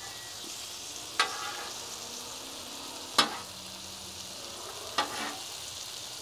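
Salsa of strawberries, onions and jalapeños in sauce sizzling on a Blackstone steel flat-top griddle as it is stirred with a metal spatula. There are three sharp, ringing strokes of the spatula on the griddle, about two seconds apart.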